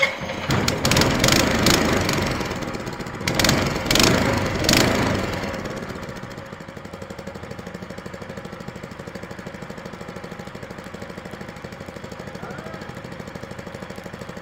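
212 cc single-cylinder Honda-clone (Predator-type) four-stroke engine of a longtail mud motor running. It is revved several times in the first five seconds, then settles to a steady idle.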